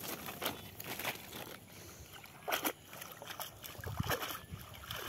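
A cast net being dipped and shaken in shallow water, with irregular splashes and sloshes; the louder splashes come about halfway through and again near the end.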